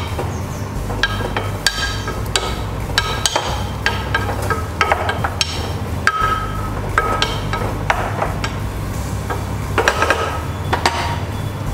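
A spoon stirring chopped vegetables and water in a metal saucepan, knocking and clinking irregularly against the pot's sides and rim, many strokes with a short metallic ring.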